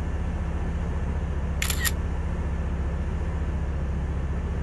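A camera shutter clicks twice in quick succession about a second and a half in, over the steady drone of the Diamond HK36 TTC Super Dimona motorglider's turbocharged Rotax 914 engine in cruise.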